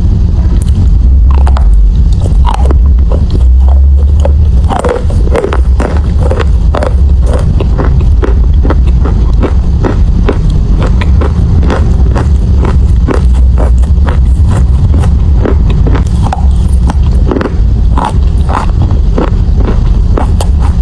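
Close-miked crunching of chalk being bitten and chewed: rapid, irregular crisp crunches and crackles over a constant deep rumble.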